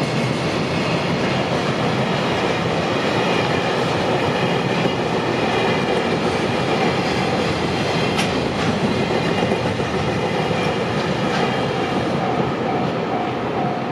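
Freight train hauled by an EF210 electric locomotive rolling past a level crossing, its wagons clacking steadily over the rail joints. A crossing warning bell rings on beneath it, its repeated tone coming through more clearly near the end.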